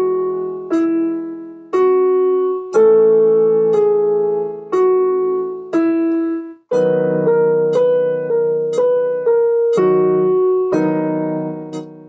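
Piano played slowly: notes and chords struck about once a second, each left to ring and fade. Past the middle come quicker notes about two a second, then a final chord struck near the end that dies away.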